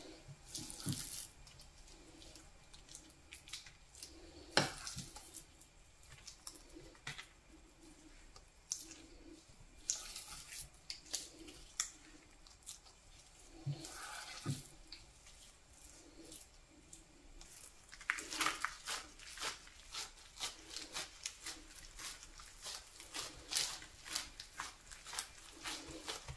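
Faint kitchen handling sounds of ground-meat filling being laid on bacon strips on baking paper: scattered soft clicks and scrapes of a spoon scooping and dropping dollops, then, about two-thirds of the way through, a quicker run of soft rubbing and pressing as gloved hands spread the minced meat flat.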